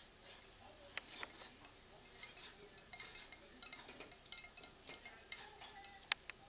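Thick gravy bubbling on the heat in a glass saucepan, its bursting bubbles giving faint, irregular little pops and clicks, with one sharper click about six seconds in.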